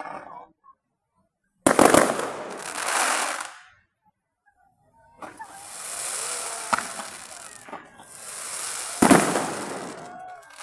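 Fireworks going off: a sudden loud burst about two seconds in, then after a gap a long crackling hiss with a sharp bang near the middle and another loud burst about nine seconds in.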